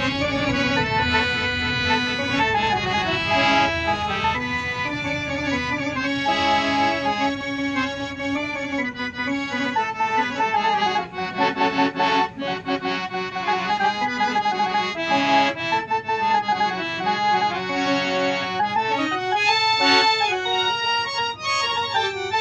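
Harmonium with a Casio electronic sound unit fitted, playing a melody of sustained reedy notes on the keyboard.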